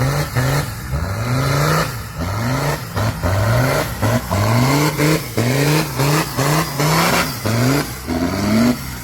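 Off-road 4x4 engine revving in short repeated bursts, about two a second, its pitch climbing on each throttle stab and dropping away between them.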